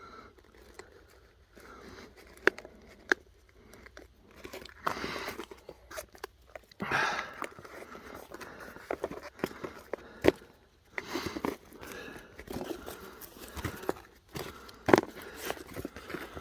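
Handling of a crashed Parrot Disco drone's broken wreckage: a few sharp plastic clicks and snaps among crunching and rustling.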